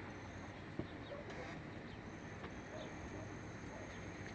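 Steady outdoor background hiss with faint, scattered bird chirps and a short click a little under a second in.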